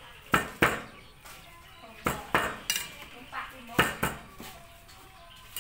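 Knife chopping raw pork on a chopping board to mince it: sharp, separate chops in irregular clusters, about eight in all.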